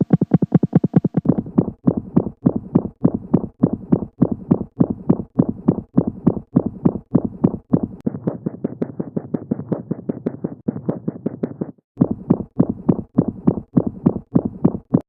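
Heartbeat recordings played one after another: a fast, regular run of lub-dub beats whose pattern changes a few times. For a stretch a little past halfway, a continuous low rush fills the gaps between beats, murmur-like, before a brief break and another run of beats.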